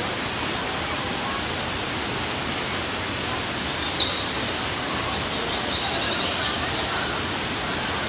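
Looking Glass Falls waterfall rushing steadily. From about three seconds in until near the end, a bird calls over it with high chirps and a quick trill, loudest at the start of its calling.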